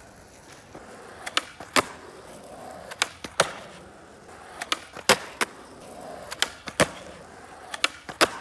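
Skateboard rolling on asphalt with sharp clacks that come in pairs every second or so. Near the end the tail pops for an ollie and the board lands.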